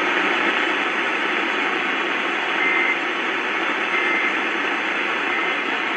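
Steady radio hiss with three short data bursts near 2 kHz, about 1.3 seconds apart. This is the Emergency Alert System end-of-message code that closes a warning broadcast.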